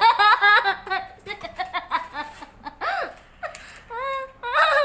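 High-pitched giggling and laughter in quick bursts, with a few rising and falling squeals.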